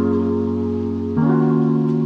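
Background music: sustained instrumental chords on a keyboard-like or plucked instrument, changing chord about a second in.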